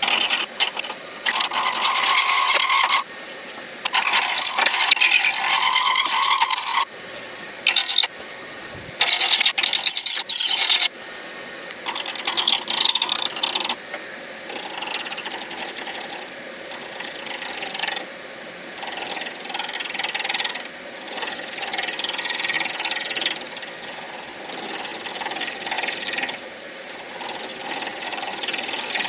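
Turning tool cutting a spinning acrylic pen blank on a midi lathe, truing a blank that has gone oblong back to round. A harsh scraping hiss comes in passes that start and stop abruptly: three loud ones in the first ten seconds or so, then lighter, quieter cuts.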